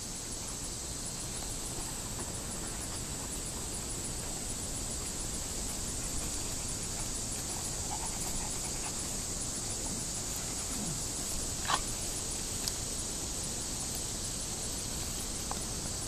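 Great Pyrenees dog playing with miniature zebu cattle, giving one short, sharp squeal about twelve seconds in over a steady high hiss.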